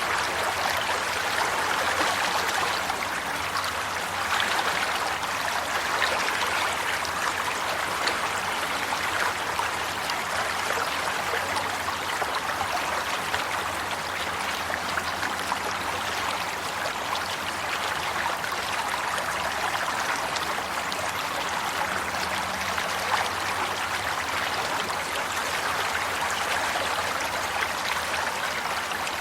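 Water flowing steadily, a stream running without a break.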